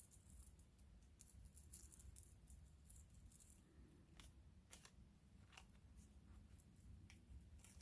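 Near silence: room tone with a few faint, scattered clicks from beads and their packaging being handled.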